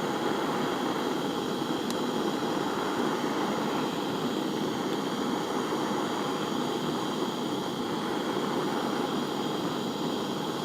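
Jeweller's gas soldering torch flame burning steadily, heating a silver setting to run solder along its seam.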